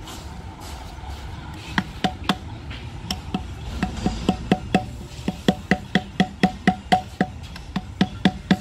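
A mallet tapping a new grease seal into a trailer wheel hub to seat it. The sharp taps start about two seconds in, come in short runs and then speed up to several a second.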